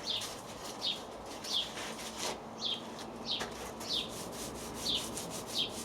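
Paint roller loaded with floor paint being rolled back and forth over a drawer unit: a rhythmic wet rubbing, about one stroke every two-thirds of a second.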